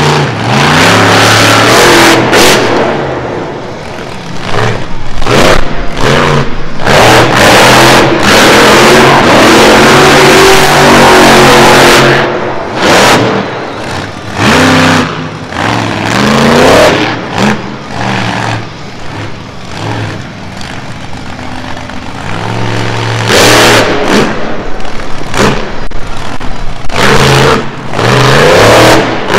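Monster truck engine revving hard in repeated bursts, its pitch climbing and falling with the throttle, very loud, with short lifts off the throttle between bursts.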